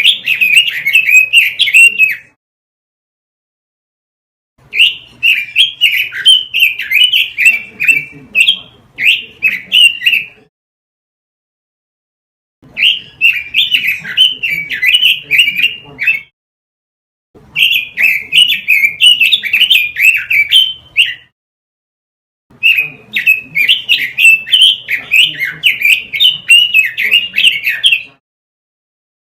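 Red-billed leiothrix (Pekin robin) singing in bouts of rapid, varied warbling several seconds long, five in all, with complete silence between them. A faint low hum sits under each bout.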